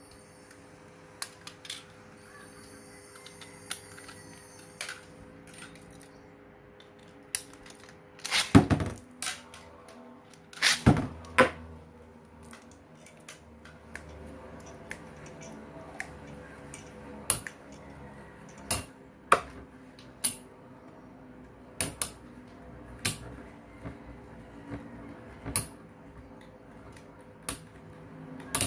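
Infinity Nado metal spinning tops clashing in a battle arena: sharp metallic clicks and clacks at irregular intervals, with two dense bursts of rattling collisions about eight and eleven seconds in.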